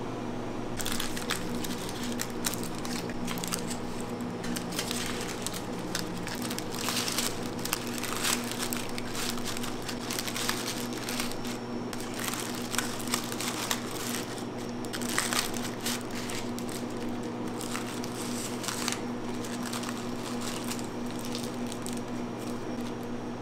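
Irregular crinkling and crackling handling noise, dense and continuous for most of the stretch, over a steady low machine hum.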